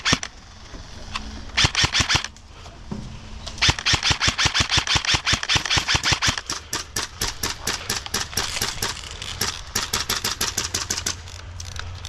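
Airsoft M4 rifle firing on full auto: a short burst about a second and a half in, then long strings of rapid shots from about three and a half seconds to about eleven seconds in.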